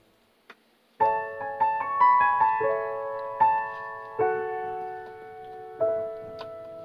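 Background piano music: slow notes, each struck and left to fade, starting about a second in after a brief near-silence.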